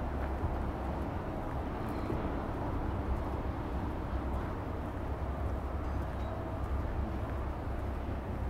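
Steady outdoor city background noise with a constant low rumble.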